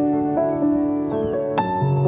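Slow instrumental music of sustained keyboard notes; a new chord sounds about one and a half seconds in.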